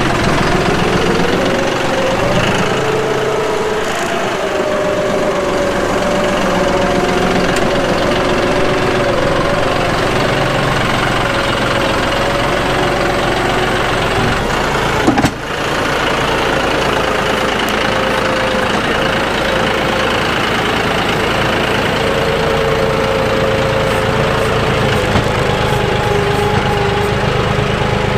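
John Deere 5055E tractor's three-cylinder diesel engine running steadily under work, its pitch rising and falling a little as the load changes. One sharp knock about halfway through.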